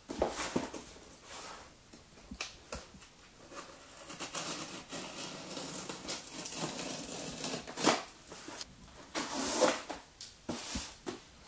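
Box cutter slitting the packing tape on a cardboard box, a run of scratchy cutting and scraping, with cardboard rustling and several knocks and clicks as the box is handled and set down.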